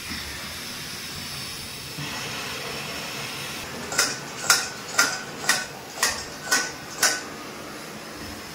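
Steady hiss of fish frying in oil, then seven sharp metallic clinks, evenly spaced about two a second, of kitchenware knocked against the pan.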